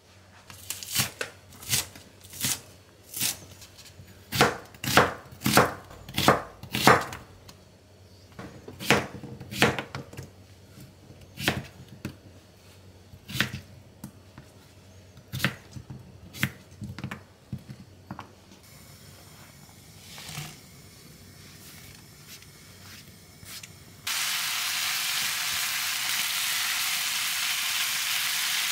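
Kitchen knife chopping cucumber on a plastic cutting board, sharp knocks in uneven runs with short pauses. About 24 seconds in, a steady sizzle begins suddenly: marinated bulgogi beef with onion and green onion frying in a pan.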